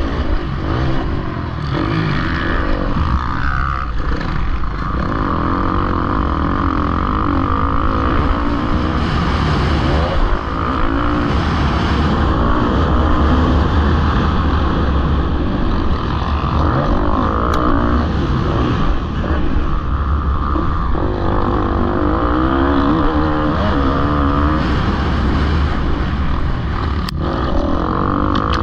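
Dirt bike engine heard from the bike's own onboard camera, revving up and down as the rider accelerates and shifts, its pitch rising and falling again and again.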